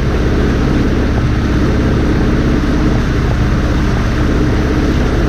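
Motorboat engine running steadily while the boat is underway, a constant low drone with the rush of water and wind beneath it.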